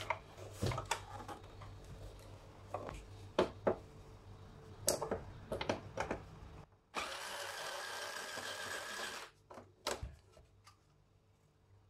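Plastic knocks and clunks as a projector is turned over and set down on a work mat. Then an electric screwdriver whirs steadily for about two and a half seconds, undoing the lamp-cover screw. A few clicks follow as the cover is lifted.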